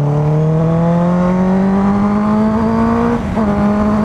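Honda CBR650F's inline-four engine accelerating, its pitch rising steadily for about three seconds, then a brief dip at an upshift, after which it runs on at a steady higher pitch.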